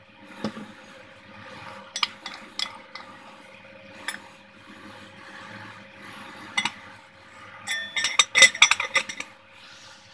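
Light clicks and knocks of a cooking pot being handled, then a pot lid clattering and clinking as it is set on the pot, about eight seconds in.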